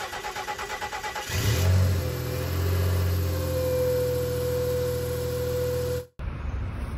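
Nissan Xterra's V6 engine being started from cold: the starter cranks briefly, the engine catches about a second in, flares up and settles into a steady fast idle with a steady whine over it. The sound cuts off abruptly near the end.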